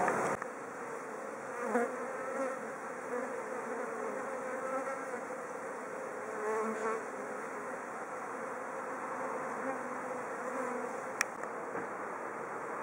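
Japanese honeybees buzzing in flight: a continuous hum of many bees that swells and fades as individuals fly close by, during a swarm. A single sharp click sounds near the end.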